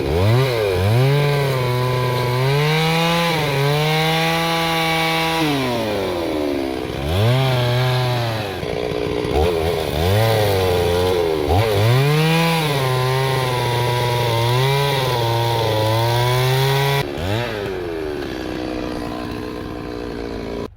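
Chainsaw cutting wood, its engine repeatedly revving up to full speed and sagging back as it works through the cut. About seventeen seconds in it drops and runs quieter.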